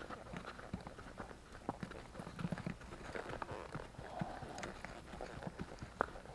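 Barefoot horse walking on a dirt road shoulder, hooves clopping in an uneven run of soft knocks.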